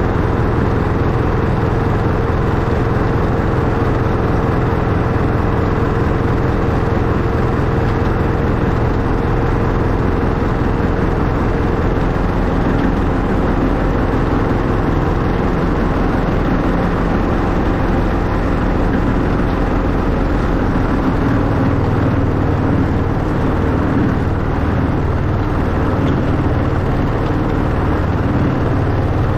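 Miniature ride-on locomotive, a replica Class 91, running along its track with a steady mechanical drive and wheel noise. Its running note changes about three-quarters of the way through.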